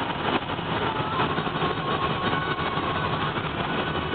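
Steady rumble of a bus's engine and road noise heard from inside the passenger cabin, with a faint thin whine through the middle.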